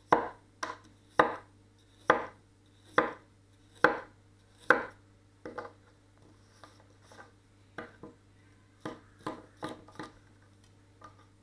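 A 230 mm gyuto chef's knife slices through a raw carrot into rounds on a wooden chopping board, each stroke a crisp crunch ending in a knock on the board. The strokes come about once a second at first, then turn softer and quicker after about five seconds.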